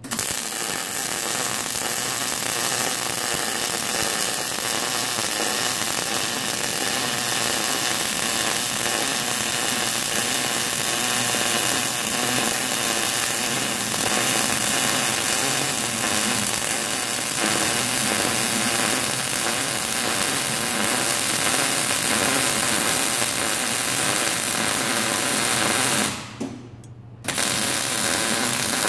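Electric arc welding, crackling steadily as a weld bead is run along the seams of a sheet-steel trough after tacking. The arc stops for about a second near the end, then strikes again.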